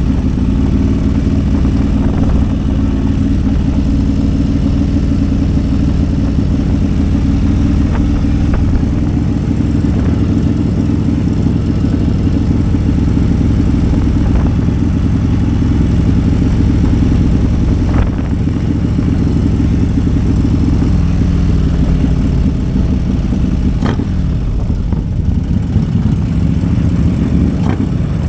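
Harley-Davidson CVO Road Glide's tuned V-twin engine running steadily under way, a loud low exhaust note.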